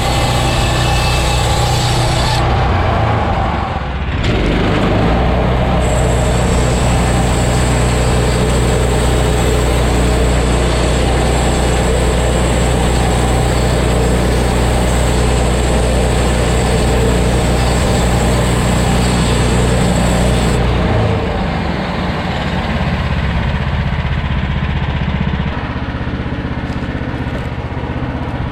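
Portable band sawmill's gasoline engine running steadily. There is a brief dip about four seconds in, and the engine note drops and changes about two-thirds of the way through.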